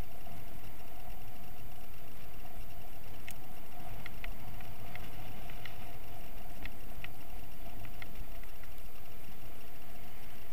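Kite buggy rolling over firm beach sand: a steady rush and rumble of wheels and wind on the camera microphone. Scattered light ticks come in from about three seconds in.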